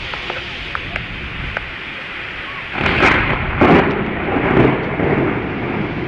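Steady rain falling, with a clap of thunder about three seconds in that rumbles on in several swells for about two seconds.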